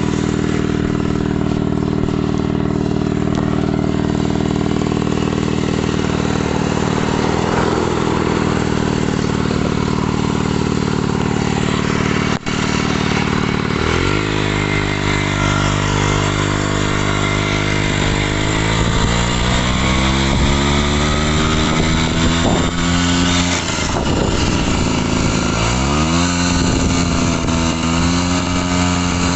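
Daelim motorcycle engine running: steady for about fourteen seconds, then revved, its pitch climbing slowly, falling sharply and rising again near the end. A single sharp click about twelve seconds in.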